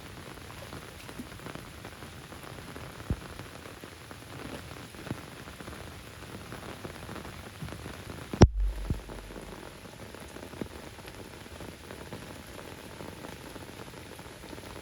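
Steady rain falling, with scattered drops striking close by. One sudden loud low thump about halfway through.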